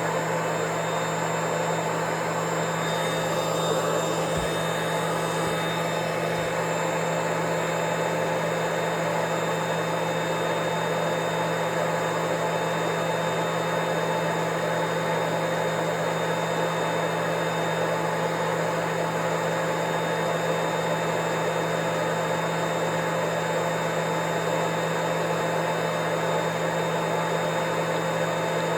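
Vacuum cleaner motor running steadily, a constant whooshing hum with a low drone and a high whine that never changes in level or pitch.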